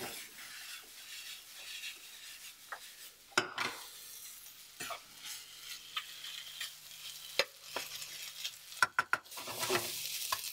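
Rice and vegetables sizzling in a hot oiled frying pan while a spoon stirs and tosses them, with a steady hiss and scattered sharp clicks of the utensil against the pan, the loudest a little over three seconds in and a quick cluster near nine seconds.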